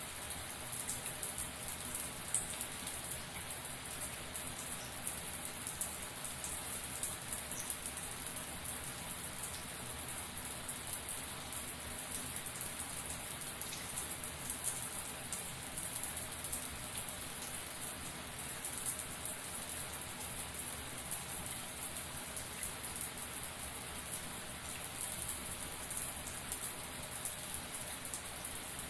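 Shower water spraying steadily and pattering down, a continuous hiss of falling drops with many small splashes.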